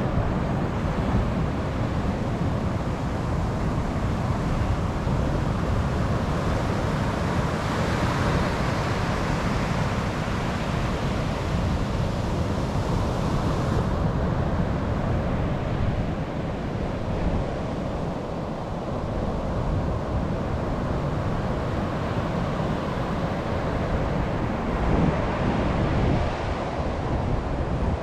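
Ocean surf breaking and washing up a sandy beach, a steady rushing wash of waves that swells a little about a third of the way in and again near the end.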